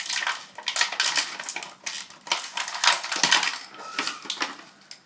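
Clear plastic toy packaging crinkling and crackling as it is pulled and torn open by hand, in quick irregular runs of rustles and sharp crackles.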